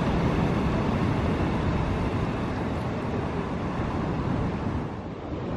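Steady rush of wind on the microphone mixed with ocean surf breaking on the beach, dipping briefly near the end.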